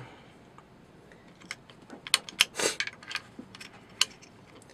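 Small metal clicks and a short scrape as the rotary pellet magazine of a Kalibrgun Cricket PCP air rifle is seated in the breech and worked against the magazine lever. The clicks come in a scattered cluster from about a second and a half in, with a sharper click near the end.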